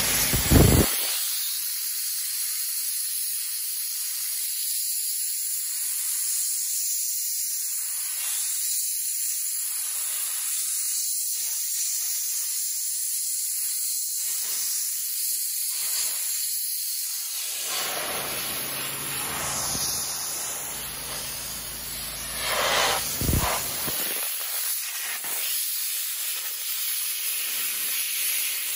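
KXSB15/500 cold-water high-pressure washer jet hissing steadily as it blasts wooden pallet boards, stripping off the bark and weathered surface. There is a thump right at the start, and the hiss swells briefly louder about two-thirds of the way in.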